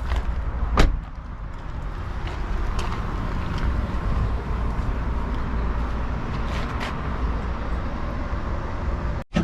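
Car engine idling with a steady low rumble, and a sharp click about a second in.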